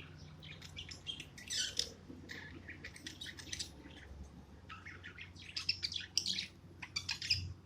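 Budgerigar chirping and chattering in quick runs of short high calls, busiest in the second half.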